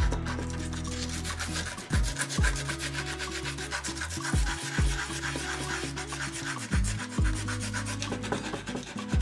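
Background electronic music with a deep bass line that changes note every couple of seconds, punctuated by low falling kick-drum thumps, over a fast, dense rasping high rhythm.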